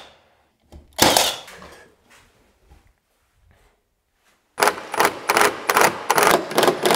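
A cordless nail gun fires a nail into door casing about a second in, each shot a single sharp crack with a short ringing tail. After a quiet pause, a quick run of short, sharp sounds begins near the end.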